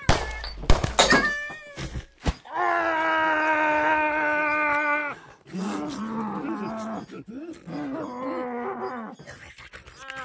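A few sharp knocks at the start, then one long, steady wailing cry held for about two and a half seconds, followed by a boy's wavering, broken sobbing.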